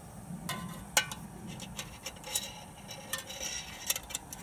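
Swedish army mess-kit pot and its wire bail handle clinking and scraping against the metal windshield stand as the pot is settled over the spirit burner: a run of light metal clicks and taps, the sharpest about a second in.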